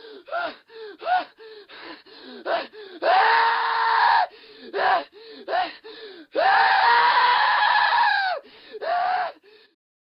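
A high-pitched voice giving a string of short cries, about two or three a second, broken by two long cries, one about three seconds in and one about six seconds in, each held for one to two seconds.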